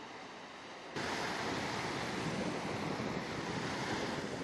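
Sea surf breaking on a sandy beach, with wind on the microphone. About a second in, the sound jumps suddenly louder and then stays steady.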